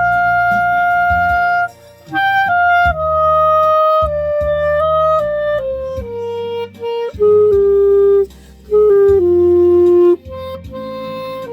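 Clarinet playing a slow melody of held notes that step gradually lower, with two short breaks between phrases, over an accompaniment with a bass line and light percussion.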